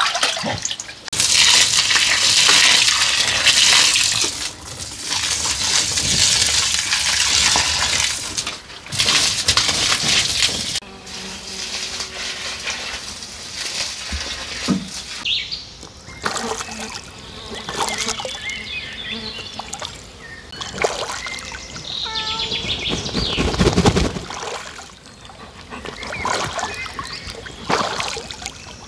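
Water running and splashing, loudest and steadiest over the first ten seconds or so, then fading to scattered splashes with a few short bird chirps.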